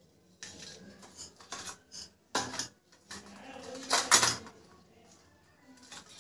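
Small stainless steel plates and a steel spoon clinking and scraping against each other as ghee is spread in the plates. It is a run of sharp metallic clinks, the loudest knocks coming about two and a half and four seconds in.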